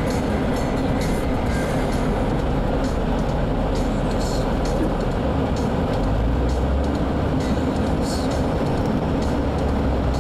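Off-road 4x4 driving over a snowy track: steady engine and drivetrain noise with a low rumble, broken by occasional light knocks and rattles.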